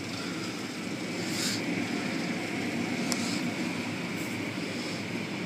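Automatic car wash heard from inside the car: hanging cloth strips and a spinning side brush scrubbing over the body and windows, a steady rushing noise with a few brief hisses and a click about three seconds in.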